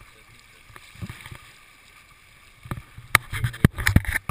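A faint steady river flow, then close handling noise: a few soft thumps, and from about two-thirds of the way in a run of sharp knocks, clicks and rustling as a landing net is swung up near the microphone.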